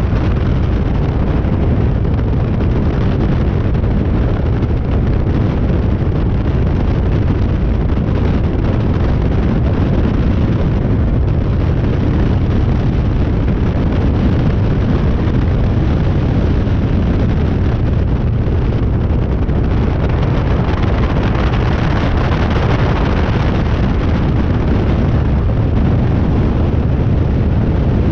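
Rans Coyote light aircraft in cruising flight: a steady engine and propeller drone under heavy wind rush on an outside-mounted camera microphone.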